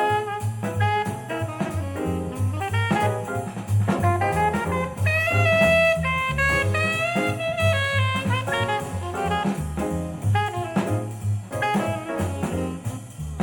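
Swing jazz played back through JBL 4307 studio monitors: a saxophone or brass melody, with a long held note about six seconds in, over walking bass and a drum kit.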